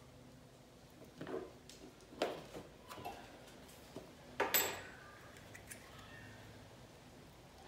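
A few short, faint clicks and knocks of small plastic engine-bay parts being handled and pressed into place, the loudest about four and a half seconds in, over a faint steady low hum.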